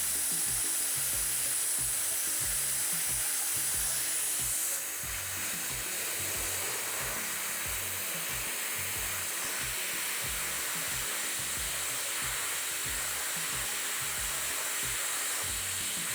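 High-speed dental handpiece spinning a pointed football-shaped diamond bur with water spray, a steady high hiss as it shapes a cured composite filling. The hiss drops slightly in level and pitch about five seconds in.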